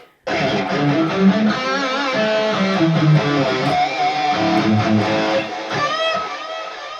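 Electric guitar played through a Valeton GP-200 modeler on a Soldano amp model with a stereo ping-pong delay, heard through two Headrush 108 active monitors in the room. A run of single notes and string bends starts about a quarter second in, and the echoing repeats fade away near the end. The delayed repeats sound thin because the delay cuts the lows from the delayed signal.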